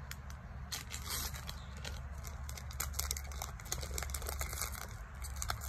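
Foil booster pack wrapper crinkling as it is handled and opened, a run of small irregular crackles over a low steady rumble.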